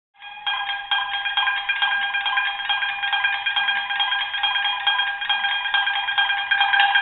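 Shamisen played solo: a quick run of plucked notes over one note that keeps ringing, starting abruptly about a quarter second in.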